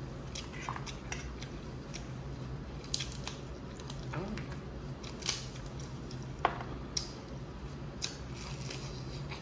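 Eating a Dungeness crab seafood boil: scattered sharp clicks and crackles of shell and wet chewing, a handful of separate snaps spread over the seconds, over a steady low hum.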